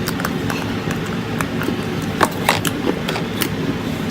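Slime being handled and squished, giving irregular sticky clicks and pops over a steady low hum.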